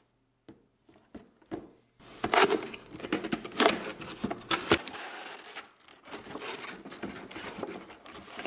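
Plastic packaging crinkling and crackling as a boxed figure is unpacked by hand. It starts with a few soft clicks, then turns to steady crinkling about two seconds in, with several sharp, louder crackles in the middle.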